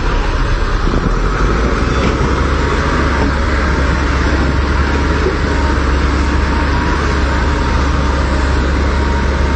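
Heavy machinery engine running steadily, a loud constant low hum with an even mechanical noise above it.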